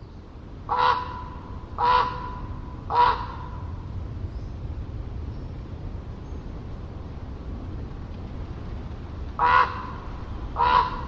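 A common raven calling: three short calls about a second apart, then, after a pause of several seconds, two more, over a steady low rumble.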